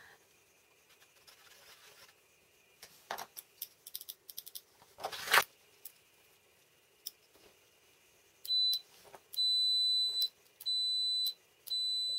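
Kaiweets KM601 digital multimeter's continuity beeper sounding four times at one high pitch, a short beep then three longer ones of about a second each, as its probes test a microswitch: each beep marks the switch contacts closing the circuit. Before the beeps, handling clicks and a loud brief rustle of the probes and switch being handled, about five seconds in.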